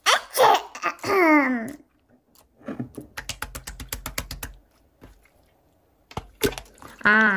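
An acted sneeze, a drawn-out "eh... eh... achoo" in a falling voice, then a quick, even run of sharp clicks, about ten a second for just over a second, like keyboard typing.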